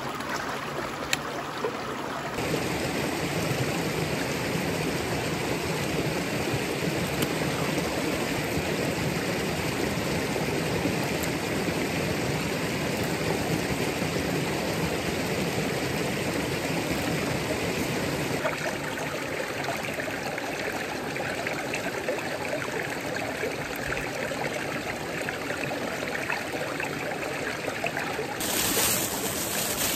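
Shallow mountain stream running over stones: a steady rush and trickle of water. Near the end, splashing as a bunch of wasabi leaves is swished in the water.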